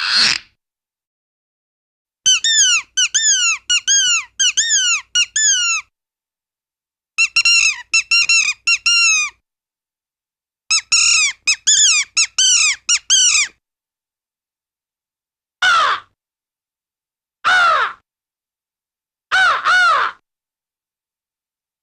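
Bird calls: three runs of quick, repeated falling notes, each run two to three seconds long, then three single calls about two seconds apart.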